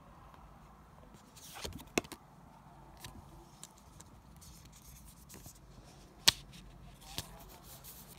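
Pokémon trading cards being handled: quiet light clicks and taps, with a brief rustle about one and a half seconds in and the sharpest tap a little after six seconds.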